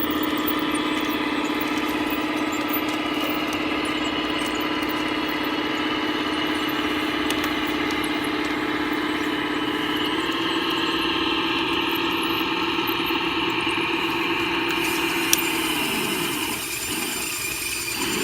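1/14-scale RC Cat D11 bulldozer running: a steady mechanical hum that steps up in pitch about ten seconds in, then winds down and fades near the end, with one sharp click shortly before it does.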